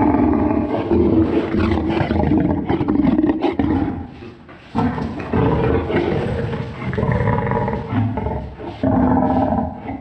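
Lion roar sound effect pitched down to suggest a far larger prehistoric lion. Two long, deep roars, the second starting about five seconds in.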